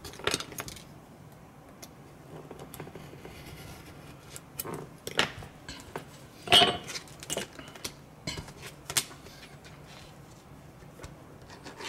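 Small modelling tools and pieces of card being handled and put down on a cutting mat: scattered light clicks, taps and scrapes, the loudest about six and a half seconds in.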